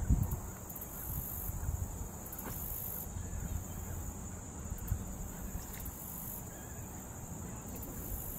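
High-pitched insect trilling, typical of crickets: one steady trill, with an even higher layer that comes and goes every second or so, over a faint low rumble.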